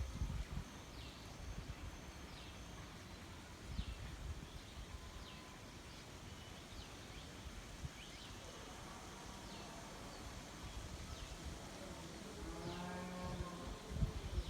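Quiet rural outdoor ambience under a low rumble, with a bird repeating a short, high, falling call about once a second. Toward the end a fainter, lower pitched call or voice rises from farther off.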